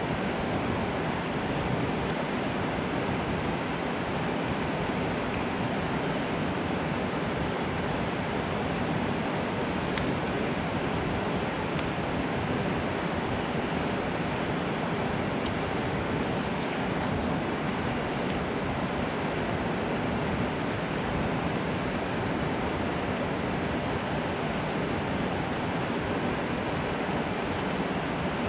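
Steady rushing roar of water pouring down a concrete dam spillway and churning into the river below.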